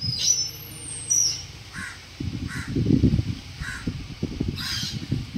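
Crows cawing, four short caws about a second apart, with a higher bird whistle twice in the first second. From about two seconds in there is a steady rough, low rustling noise.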